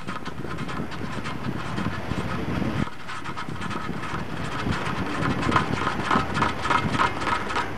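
Rattling and wind noise from riding a bicycle along a paved path, with a run of quick clicks in the second half.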